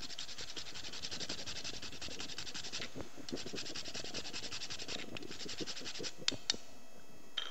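Cinnamon stick being grated on a small hand grater: rapid, even rasping strokes with a short break about three seconds in, tailing off around six seconds, then a couple of light clicks.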